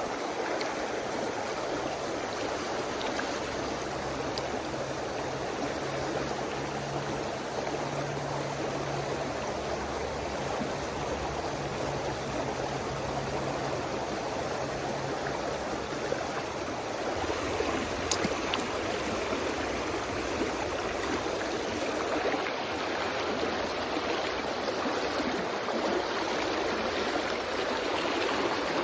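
Steady rushing of a river's flowing current, heard from close by while wading in it.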